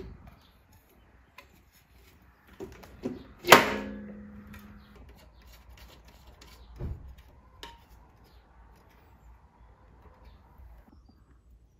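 Light clicks and handling noises from hands working the throttle position sensor on a set of individual throttle bodies, with one sharp metallic clink about three and a half seconds in that rings briefly, and a dull thump near seven seconds.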